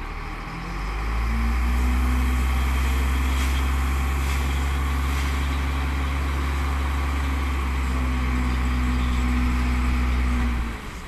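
Howo A7 dump truck's diesel engine, run up to steady raised revs about a second in to drive the hydraulic hoist as the tipper bed lifts, then dropping back sharply near the end.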